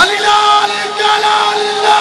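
A man's voice chanting one long, level held note over the murmur of a crowd.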